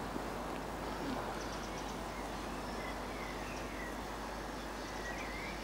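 Birds chirping: short, scattered high calls and twitters over a steady background hiss.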